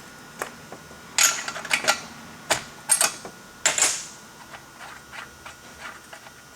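A handful of sharp clicks and short rattles at uneven intervals, the loudest in the first four seconds, then a few fainter ticks.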